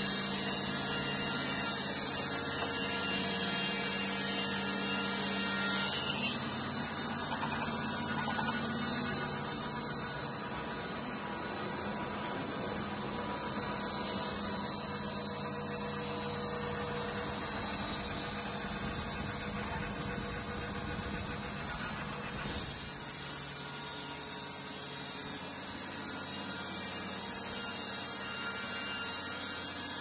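Band sawmill's electric machinery running with a steady hum and a high hiss. It grows louder for stretches in the middle and eases off over the last third.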